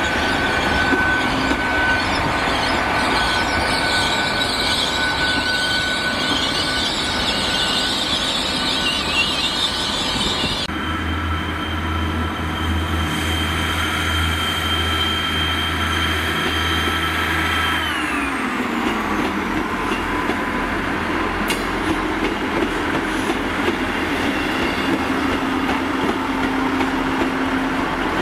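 Passenger trains at a station platform. First a GWR Intercity Express Train runs past with a steady rolling noise and a high ringing tone from the wheels. Then a GWR Class 158 diesel multiple unit's engines hum steadily, a whine falls in pitch about two-thirds of the way through, and its wheels clatter over the rails as it moves.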